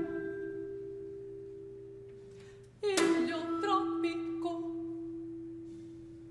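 Vibraphone notes struck and left ringing, fading slowly; a second, fuller chord is struck about three seconds in and rings on.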